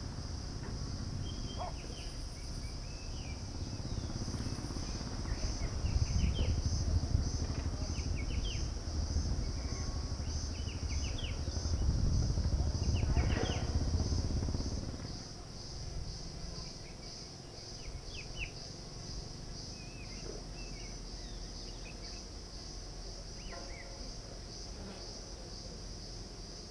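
A steady, finely pulsing high-pitched insect chorus, with small birds chirping now and then. A low gusting rumble in the first half drops away about fifteen seconds in.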